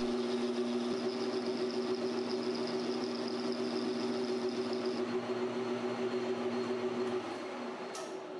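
Precision Matthews PM1236T metal lathe running under power, its parting tool cutting the mandrel stock. A thin high whine from the cut stops about five seconds in, the lathe's steady hum drops away near the end, and a sharp click follows just before the end.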